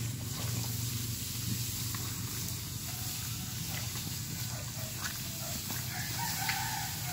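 Wooden sled drawn by a carabao sliding over wet grass, a steady rustling scrape with a few faint knocks, over a constant low hum.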